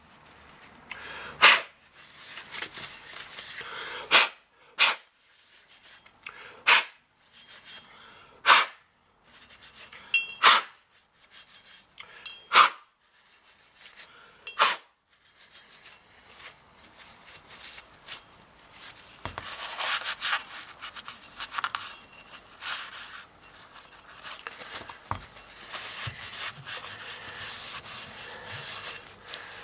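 Turbocharger part being rubbed clean in paint thinner: about nine short, sharp strokes in the first half, then quicker, steadier scrubbing.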